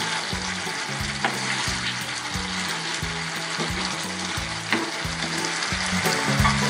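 Catfish pieces in a thick spicy sauce sizzling and bubbling in a frying pan as the sauce cooks down, while a spatula stirs them, knocking against the pan about a second in and again near five seconds.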